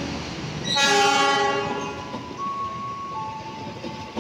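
Diesel locomotive air horn sounding one blast of about a second, about a second in, as a double-headed passenger train passes. The rumble of the locomotives and coaches rolling by continues after it.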